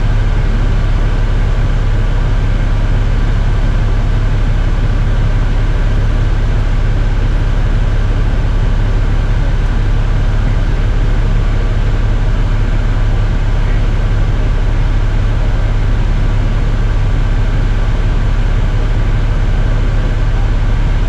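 A steady mechanical drone with a strong low hum that stays unchanged throughout.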